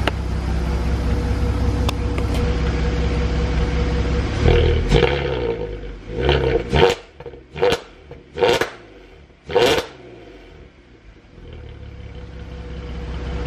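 VW Golf R32's 3.2 VR6 engine idling, then blipped hard about six times in quick succession before settling back to idle. The exhaust has just been repaired and no longer blows.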